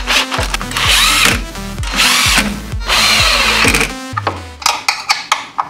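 Cordless drill-driver driving screws to fasten a plastic guard: the motor runs in several short goes, its pitch falling each time it stops. Near the end a few sharp clicks follow.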